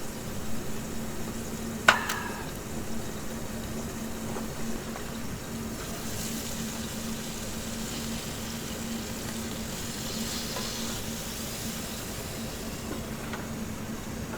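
Sausage sizzling in a frying pan, with a steady low hum underneath. A single sharp metallic clink about two seconds in, and the sizzle grows a little stronger in the middle.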